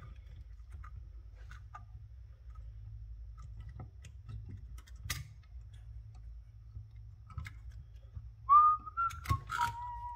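Light clicks and taps of small metal carburetor parts being handled, then near the end a person whistling a few short notes, the last one held for about a second.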